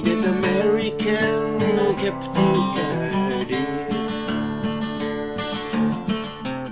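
Background music: a folk song played on strummed acoustic guitar, without words in this stretch.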